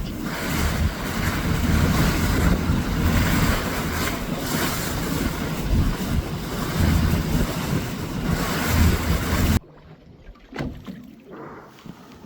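Heavy wind buffeting the microphone over the rush of water and the run of a boat under way. About ten seconds in it cuts off abruptly to a much quieter stretch with a few faint short sounds.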